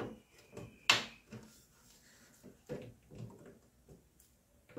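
Metal locking tabs of a keyboard speaker grill being twisted with pliers against the plastic panel: a few scattered clicks and knocks, the sharpest about a second in.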